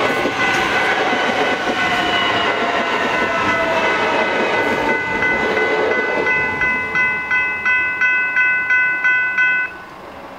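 A suburban electric train runs over the crossing, its rail noise dying away about six seconds in. Throughout, the level crossing's General Signals Type 3 electronic bells ring at about three strikes a second. The bells cut off suddenly near the end as the crossing deactivates once the train has cleared.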